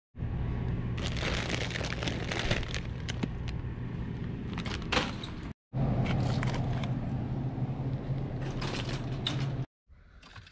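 Supermarket sound: a steady low hum with clatter and clicks of groceries being handled. It stops dead twice, briefly.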